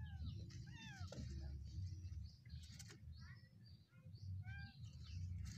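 Kitten mewing, about four short cries that fall in pitch, as a monkey grabs at it.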